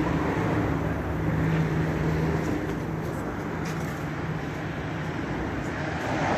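A motor vehicle's engine running steadily at idle, a constant low hum with a few faint knocks over it.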